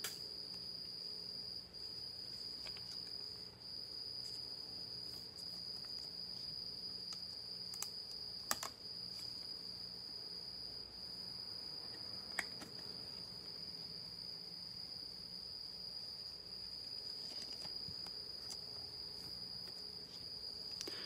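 A cricket chirping in one steady, unbroken high-pitched trill. A few sharp clicks from trading cards and sleeves being handled sound over it, two of them close together near the middle.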